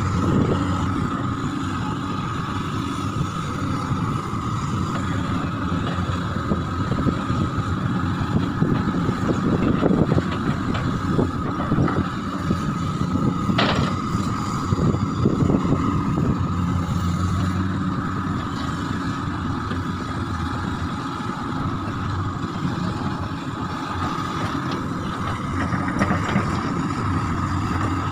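Hydraulic crawler excavators working, their diesel engines running steadily under load with a steady high whine over the low drone. A single sharp knock about halfway through.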